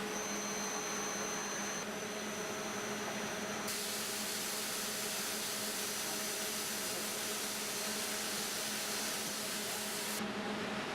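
MicroStep CNC plasma cutting machine running with a steady hum and hiss. A thin high whine sounds for the first two seconds. A stronger high hiss comes in about four seconds in and cuts off about ten seconds in.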